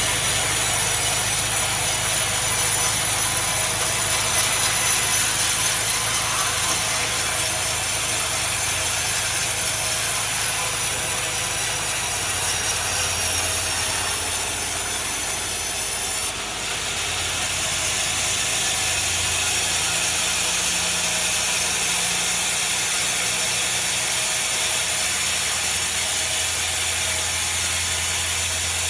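A sawmill saw running and cutting a large log, a steady mechanical whir and rasp. The sound changes abruptly about sixteen seconds in, then carries on.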